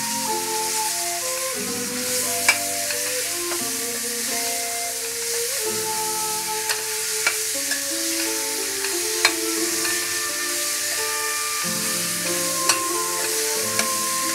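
Peeled ripe mangoes and grated raw mango sizzling in hot spiced oil in a stainless steel kadhai as a steel spoon stirs them, clinking against the pan about seven times. Background music with a slow melody plays over it.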